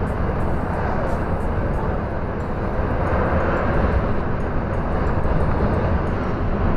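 Scania R440 truck cruising, heard from inside the cab: a steady low diesel drone mixed with road and wind noise.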